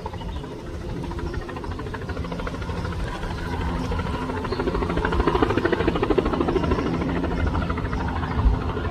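Bell 206 helicopter coming in to land: the rapid chop of its two-bladed main rotor over the whine of its turbine engine, growing louder as it approaches.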